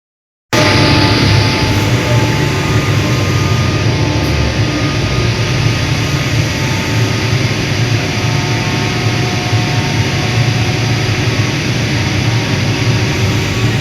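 Vertical-type Atlas Copco air compressor running with a steady, loud low hum and mechanical noise, the abnormal sound that its owner takes for a fault. It starts abruptly about half a second in.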